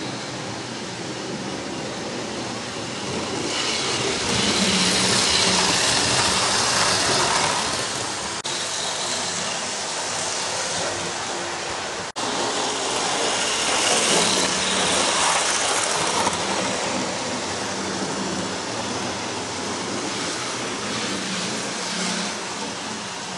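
Model trains running on the layout: a steady whirr and rattle of small electric motors and wheels on the track. It swells louder twice, about three seconds in and again near the middle, as trains pass close, and the sound breaks off for an instant twice.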